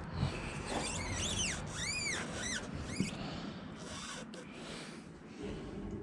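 Alloy wheel being offered up to the hub by hand, with a rubbing, handling noise. A few short high squeaks come between about one and two and a half seconds in, and there is a single knock about three seconds in.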